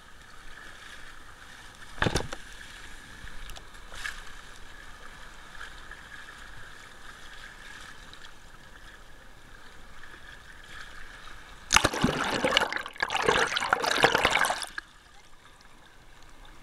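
Sea water sloshing and splashing around a camera held at the surface in the surf. There is one sharp splash about two seconds in, and a loud stretch of churning, splashing water lasting about three seconds near the end.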